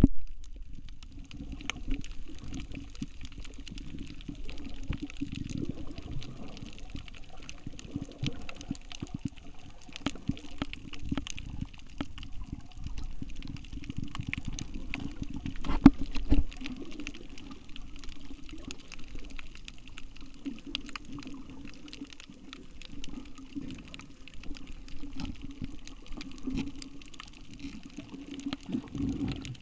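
Muffled underwater sound through a submerged camera: a steady low rumble of moving water with scattered small clicks and crackles, and a louder surge of water noise about sixteen seconds in.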